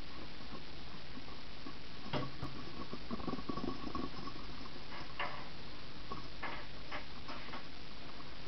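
Steady background hiss with a faint hum, broken by a few soft taps and rustles.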